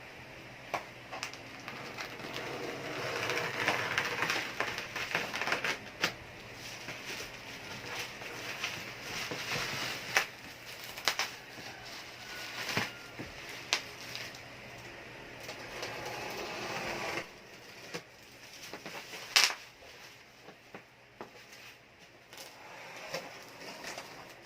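Handling and unwrapping a cardboard TV package wrapped in thin bubble wrap: rustling and crinkling of plastic with scattered clicks and knocks, and one sharp snap about three-quarters of the way through.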